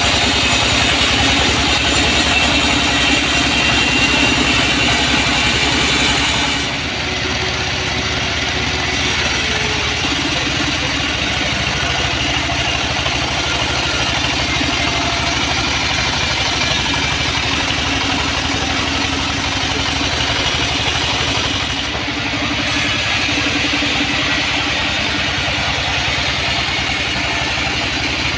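Sawmill band saw running with a steady mechanical drone. The higher-pitched part of the sound drops away about a quarter of the way in and returns about three quarters of the way through.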